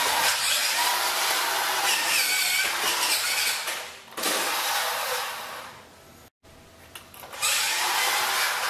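Vintage Radio Shack Off-Roader 4x4 RC truck's electric motor and gearbox whining as it drives on a hard floor, the pitch rising and falling with the throttle. It drops out briefly about four seconds in and goes almost silent for about a second and a half near the end before starting up again.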